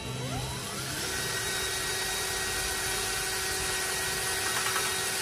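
Ryobi cordless drill spinning up with a rising whine, then running at a steady speed, drilling a mounting hole in the engine's shroud.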